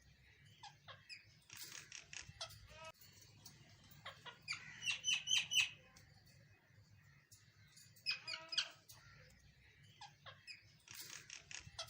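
A bird calling in short bursts of rapid, high chirps that repeat about every three seconds, the loudest burst about five seconds in.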